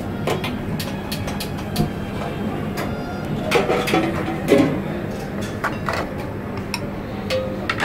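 Metal tongs and a steel spatula clinking and scraping against steel syrup trays and plates as malpua are lifted out and plated, over a steady background hum; the clinks are scattered, with a louder cluster about halfway through.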